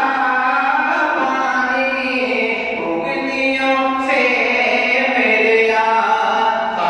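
A man singing an unaccompanied Urdu devotional naat in praise of the Prophet, a solo voice drawing out long, ornamented held notes that glide between pitches.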